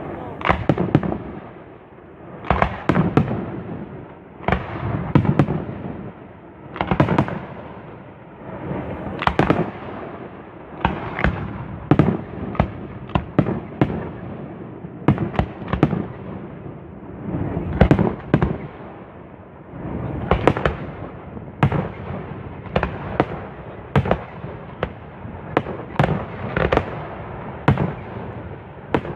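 Fireworks display: a rapid, unbroken series of shell bursts, sharp bangs coming one to three a second, with a rumble carrying on between them.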